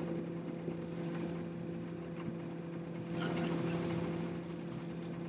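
A Jeanneau 440 sailboat's inboard diesel engine running steadily at low revs while manoeuvring to dock. A brief swell of hissing noise comes about three seconds in.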